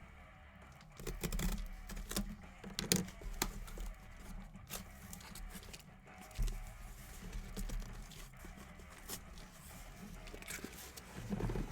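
Cardboard case of trading-card boxes being handled and opened by hand: scattered light taps, scrapes and crinkling of cardboard and packaging.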